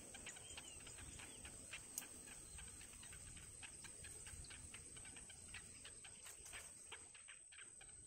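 Faint, rapid, irregular ticking calls, several short clicks a second, from downy nestlings in a twig nest, over a steady faint high-pitched whine.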